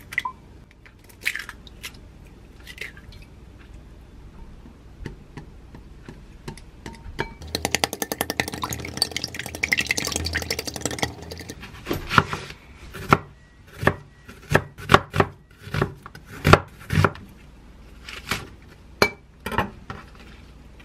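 Eggs cracked one after another into a glass mixing bowl, then beaten fast with a utensil clicking against the glass. Near the end comes a run of about a dozen louder, crisp crunches as fresh green leaf lettuce is torn and folded on a wooden cutting board.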